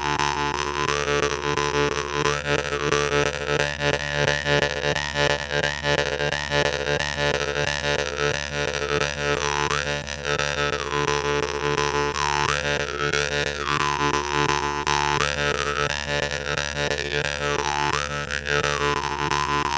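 Jew's harp (vargan) playing a steady drone, its overtones swelling and fading in a wah-like sweep every second or two as the mouth changes shape, with a quick rhythmic pulse a few seconds in.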